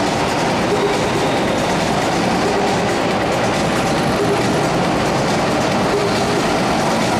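Go-kart engines running on a track, a steady mechanical drone with no break.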